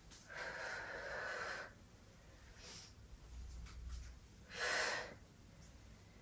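A woman's breathing while exercising. A long breath of about a second and a half comes near the start, then a shorter breath about four and a half seconds in.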